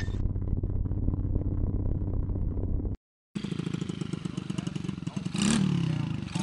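Small dirt bike (pit bike) engine running with a fast, even putter, cut off for a moment about three seconds in; about five seconds in it revs briefly, rising in pitch and falling back.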